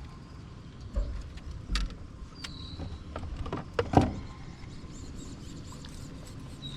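A few sharp knocks and clicks on a fishing boat, the loudest about four seconds in, over a low steady rumble.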